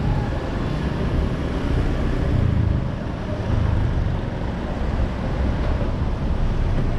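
Steady low rumble of street traffic and engine noise, with wind buffeting the microphone, swelling a little about two to three seconds in as a vehicle passes.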